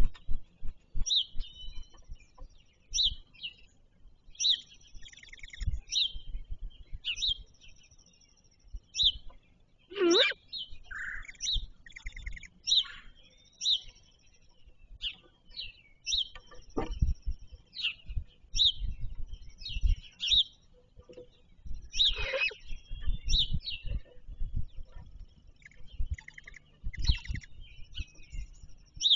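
Songbirds chirping: short high calls about once a second, with two longer calls that sweep steeply down in pitch about ten and twenty-two seconds in. Low thumps and rumbles sound underneath.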